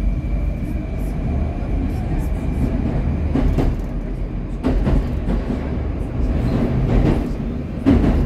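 Metro train running through a tunnel, heard from inside the carriage: a steady low rumble of wheels on rail, with a handful of sharper clacks in the second half.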